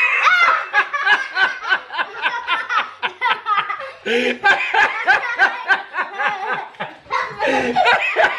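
Several people laughing hard together, a man and a woman among them, in quick runs of ha-ha-ha.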